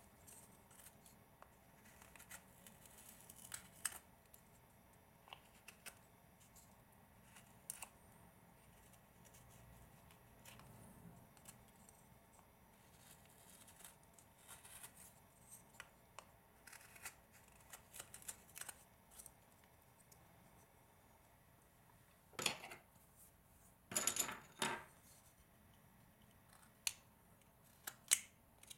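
Carving knife slicing thin shavings from a hand-held block of wood: scattered quiet clicks and short scrapes, with three louder slicing strokes about three-quarters of the way in.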